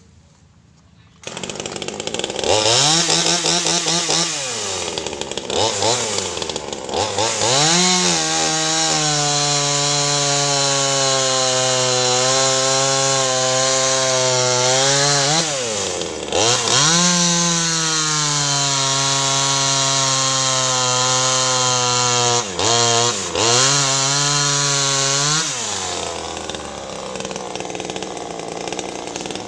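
Small two-stroke top-handle chainsaw (25cc, 16-inch bar) starting up about a second in and revving. It then runs at full throttle sawing through a mango tree trunk, the engine note sagging briefly twice under load. Near the end it drops back to idle.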